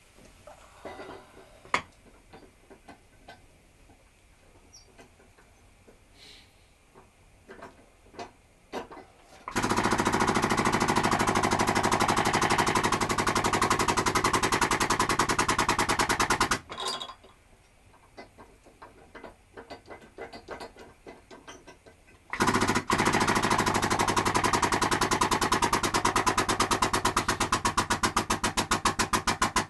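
Hydraulic forging press running in two long stretches of about seven seconds each, a loud, fast-pulsing mechanical drone, as it squeezes a hot steel billet sideways to square the bar. Light scattered clicks and taps come before and between the two runs.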